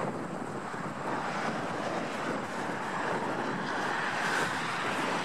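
Steady noise of road traffic going by, swelling a little near the end, with wind on the microphone.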